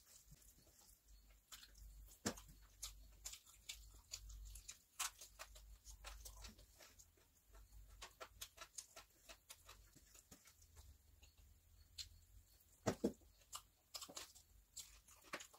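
Eating by hand from a steel plate: fingers mixing biryani rice on the metal plate and mouth chewing, heard as faint, scattered small clicks and smacks. Two louder ones come close together about thirteen seconds in.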